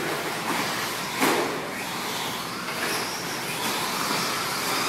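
Radio-controlled 2WD short course trucks racing on a dirt track: a steady hiss of their motors and tyres on the dirt, with one sharp knock about a second in.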